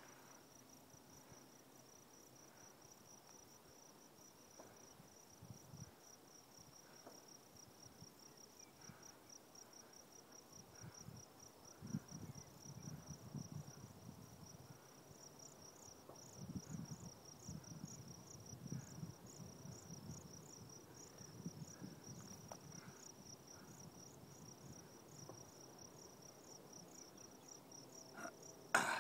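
Insect trilling steadily at a high pitch, faint. Soft low rumbles of wind on the microphone come and go in the middle, and a sharp knock sounds just before the end.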